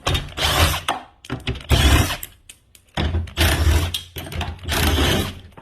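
Four loud rasping bursts, each about a second long with short gaps between them, from work on a garage door that a car has damaged.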